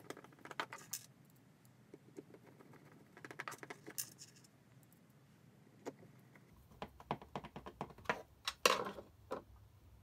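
Light clicks and small metallic rattles of hand tools and fittings being handled while a wall switch or socket plate is fitted. The sounds come in short clusters, busiest in the last few seconds.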